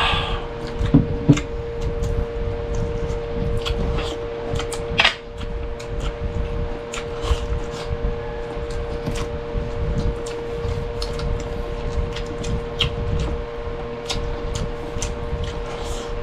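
Close-miked mukbang eating sounds: chewing and mouth clicks with frequent small knocks on plates, over the steady hum of a fan.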